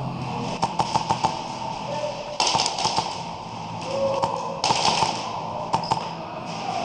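Airsoft gunfire in an indoor arena: a cluster of sharp taps about half a second in, then two quick runs of rapid sharp pops and hits, each about half a second long, a couple of seconds apart. Steady background music plays underneath.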